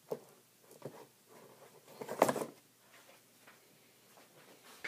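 An oversized die knocking and scraping against a cardboard box dice tower as it is pushed in. A few scattered bumps, with the loudest cluster of knocks about two seconds in.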